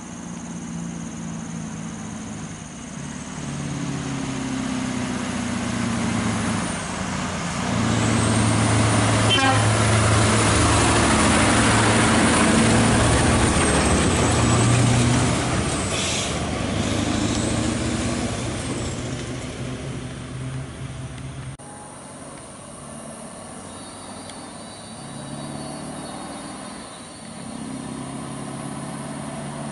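Scania R580's V8 diesel engine pulling a heavy lowbed load, growing louder as the truck comes up and passes, with a high whistle above it, then fading as it goes by. After a sudden drop, a truck engine is heard again, fainter and farther off.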